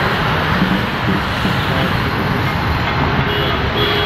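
Steady, loud rush of road traffic with a low rumble, and a faint high tone about three seconds in.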